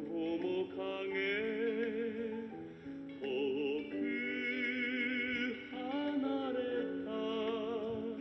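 Recorded song playing from a cassette tape through an Aiwa boombox's speakers: sung vocals with vibrato over musical accompaniment, its treble cut off as is usual for tape playback.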